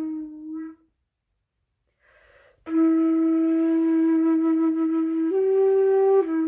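A flute plays a slow hymn tune in long held notes. The first note dies away near the start, and after a short breathy hiss a long note begins, rising a step near the end and falling back.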